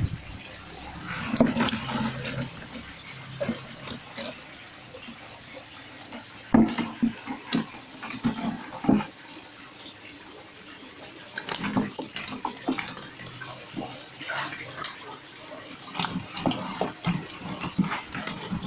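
Live fish thrashing in a mesh landing net and slapping into a metal basin, with water splashing and dripping in irregular bursts. Short low animal calls come in among the slaps.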